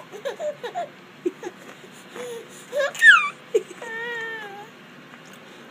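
Baby vocalizing in short squeaks and coos, with a sharp high squeal about three seconds in and a held, wavering 'aah' around four seconds.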